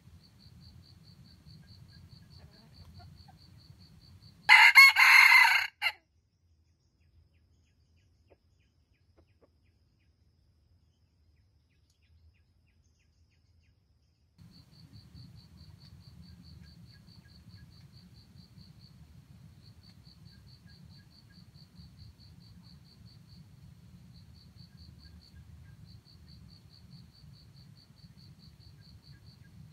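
A red junglefowl rooster crows once, loud and close, about four and a half seconds in, the crow lasting about a second and a half. A faint, rapidly pulsing insect trill runs underneath.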